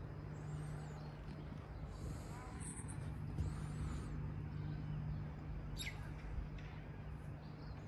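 Outdoor ambience: a steady low hum with a rumble beneath it, and a few faint bird chirps.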